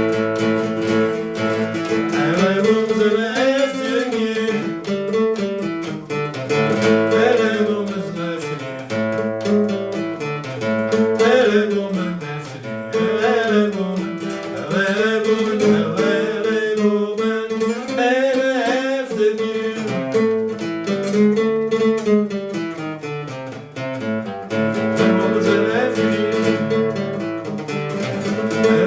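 Song with a guitar accompaniment and a voice singing a gliding melody over it.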